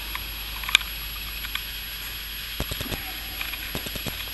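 Steady hiss with scattered light clicks and knocks: one sharp click about a second in, then small clusters of clicks near the middle and toward the end.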